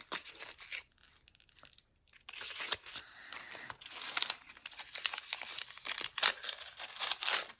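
Small plastic packaging bags crinkling and being torn open. There is a short pause about a second in, then steady rustling.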